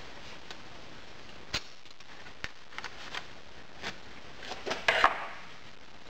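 Scattered sharp metal clicks and knocks as pliers grip and handle a small metal crucible, with a louder clatter about five seconds in.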